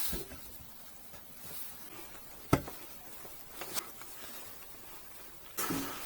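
Faint handling sounds while working a rubber fuel line onto a heater fitting: one sharp click about two and a half seconds in, two faint ticks about a second later, and a short rustle near the end.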